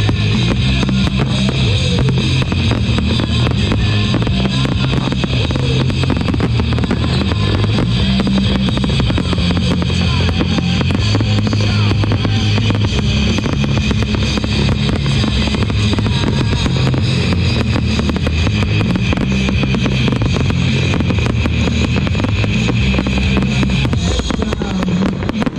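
Loud music with a steady drum beat plays over a fireworks display, with shells and fountains crackling and popping throughout; the music cuts off near the end.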